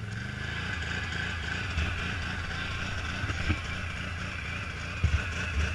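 ATV engine running steadily at low speed while the quad creeps through mud, with a few short knocks, the loudest about five seconds in.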